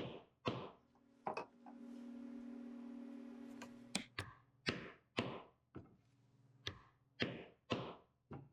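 Repeated sharp knocks, about a dozen, roughly two a second with a pause in the first half: the lathe's spur center being struck to drive it into the end grain of a wooden handle blank and leave a centre impression. A steady low hum sounds for about two seconds during the pause.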